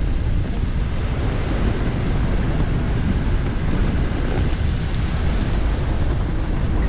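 Wind buffeting the microphone: a loud, steady, fluttering rumble with hiss above it.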